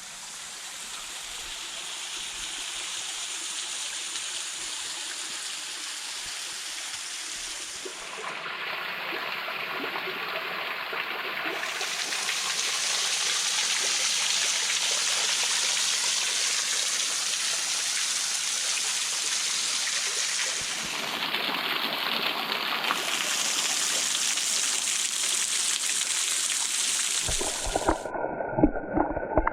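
Waterfall: a steady rush of falling, splashing water that grows louder over the first half, with a couple of sudden shifts in tone. Near the end it gives way to a muffled low rumble with several knocks.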